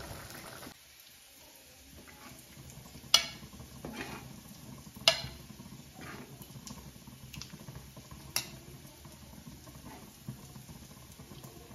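Steel ladle and steel plate clinking against a steel kadai as boiled eggs in curry gravy are ladled out: three sharp metallic clinks with a few lighter taps between, over a faint steady hiss.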